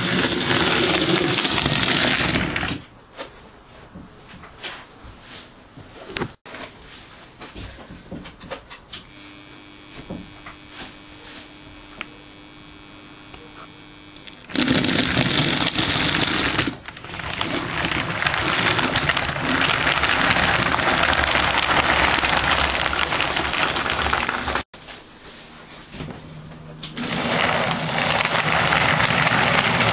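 Model J50 tank engine running on a model railway: the whirr of its small electric motor and the rattle of its wheels on the track. The sound is loud for the first few seconds, again through much of the second half, and in the last few seconds, and drops to faint ticking in between. It cuts off abruptly twice.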